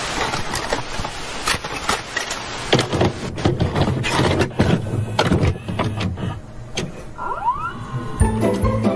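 Videotape recorder sound effect: a burst of static hiss, then a run of mechanical clicks and clunks with a short rising whine. Music comes in near the end.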